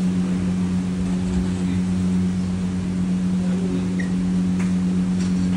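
Steady machine hum at an even pitch, with a few faint clinks near the end.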